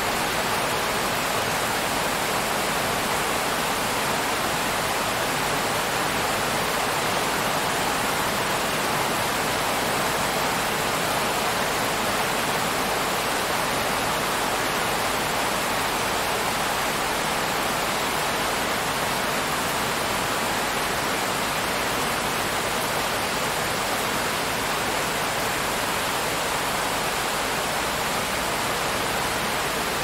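Steady rain falling, an even hiss that doesn't change in strength.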